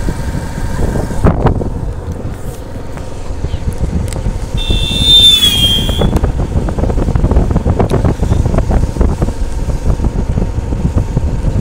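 Motorcycle running on the move, with heavy wind buffeting on the microphone as the bike is ridden along a road. A brief high-pitched beep sounds about five seconds in.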